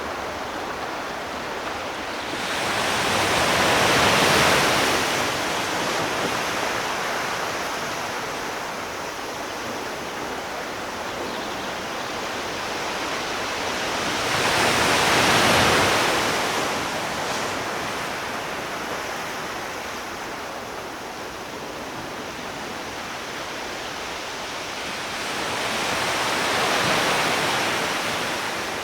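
Sea waves breaking and washing up on a shore, three swells about ten seconds apart over a steady wash of surf.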